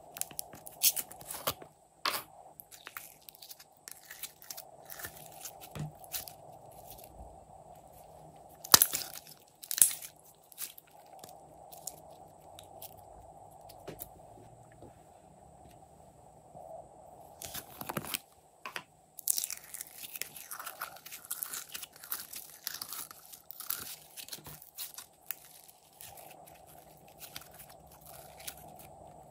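Orange slime squeezed out of a soft plastic container and then pulled and stretched by hand, making sticky crackling clicks and pops. There are a few louder snaps near the middle, and the crackling grows denser in the second half.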